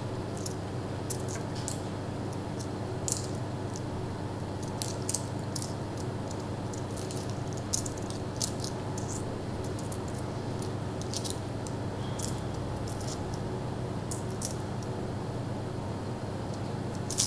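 Small coins clinking and ticking irregularly as loose change is picked through and counted out by hand, over a steady low hum.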